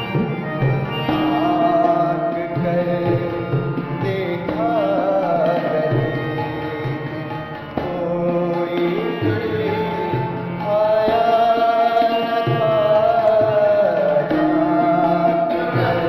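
Ghazal sung by a male voice, with long gliding, ornamented notes over tabla accompaniment; the music grows louder about two-thirds of the way through.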